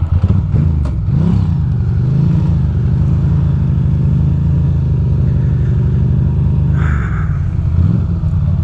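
The air-cooled L-twin of a 2006 Ducati Monster 620 running at low revs in slow traffic, with a short rise in revs about a second in, then a steady low drone.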